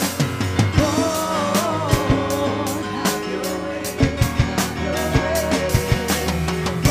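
Live worship band: women singing a melody into microphones over a drum kit played with frequent irregular hits.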